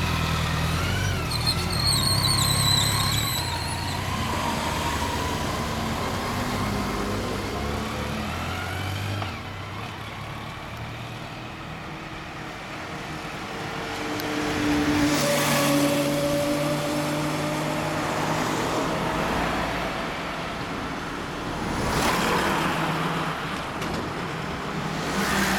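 BMW K100RT sidecar outfit's four-cylinder engine revving as it pulls away, with a brief high squeal in the first few seconds. Then steady street traffic, with cars and trucks passing.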